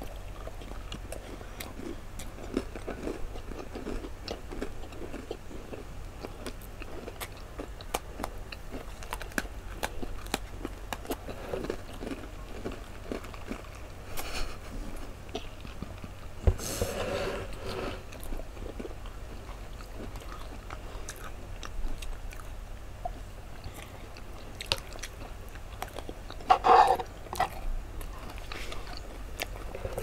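Close-miked crunching and chewing of Oreo chocolate sandwich cookies, many small crisp crunches with wet mouth sounds. Two brief voice sounds break in about halfway and again near the end.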